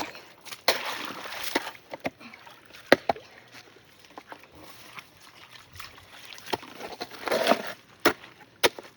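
Scattered knocks and clunks, a handful spread over several seconds, with a short noisy rush about seven seconds in.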